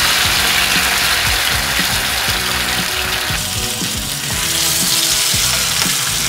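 Pork steaks sizzling steadily as they fry in butter and oil in a non-stick pan, with background music playing over it.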